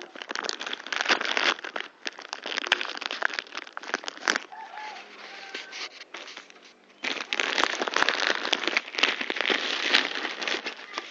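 Plastic bag crinkling and rustling as it is handled, in two long spells with a quieter pause in the middle.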